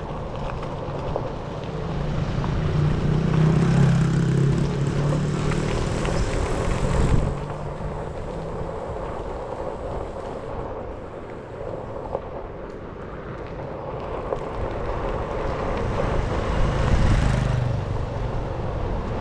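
Onewheel electric board rolling over street asphalt, its tyre noise mixed with wind buffeting the microphone. The rumble swells louder for a few seconds near the start, cutting off suddenly, and again near the end.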